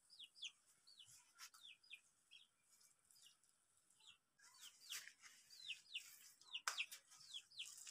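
Faint, rapid high chirping of small birds: short downward-sliding notes, several a second. A few soft clicks come in between.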